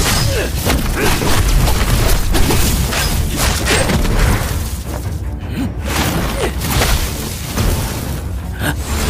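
Animated battle sound effects: repeated booming impacts with crackling, shattering energy strikes and sweeps over a heavy low rumble, with music underneath.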